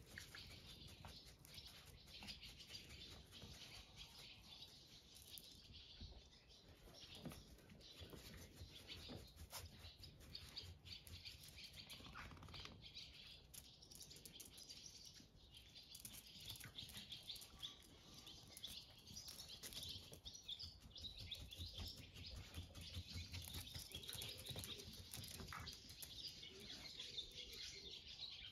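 Faint birds chirping in the background, with the light patter of two small dogs' paws as they scamper and play on concrete and moss.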